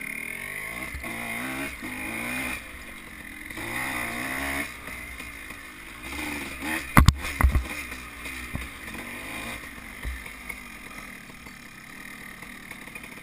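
Dirt bike engine revving up and down as it is ridden, pitch rising and dropping several times in the first half. About seven seconds in, a few sharp knocks are the loudest sounds.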